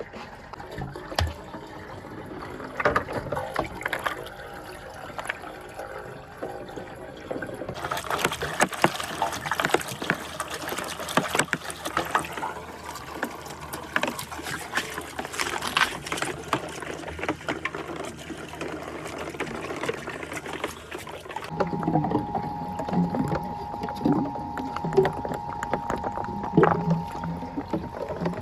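Water running down a marble run with many marbles rolling and clicking through PVC pipe and plastic rain gutters. The sound changes abruptly about 8 seconds in and again about 21 seconds in, and a steady tone joins it for the last part.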